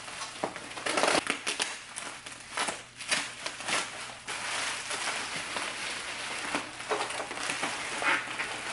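Plastic bubble wrap crinkling and rustling as it is pulled off by hand, with irregular crackles.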